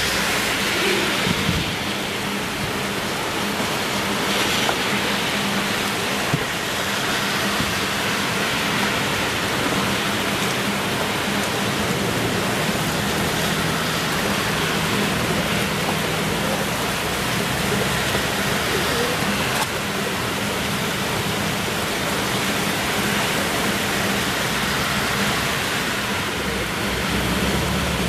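Spherical fountain spraying in a heavy downpour: a steady hiss of falling water and rain.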